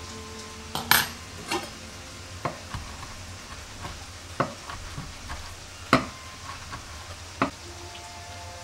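A cooking utensil clinking and knocking against a pan while food is stirred as it fries, with a low sizzle underneath. About nine sharp clinks come at irregular intervals; the loudest are about a second in and about six seconds in.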